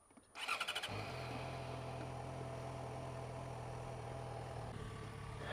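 Motorcycle electric starter cranking briefly, then the engine catches about a second in and settles into a steady idle.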